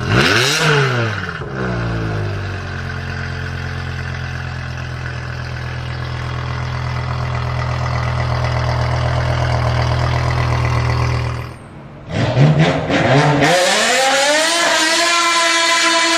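BMW M5 E60's 5.0-litre S85 V10 engine. It blips up and falls back at the start, then runs at a steady pitch for about ten seconds. After a sudden break it revs up again and holds a higher steady pitch.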